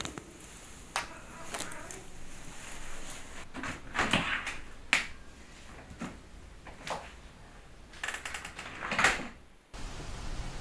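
A series of separate household clicks and knocks: a door's handle and latch worked and the door moved, among other small handling sounds, with the loudest knock about nine seconds in before the sound cuts off.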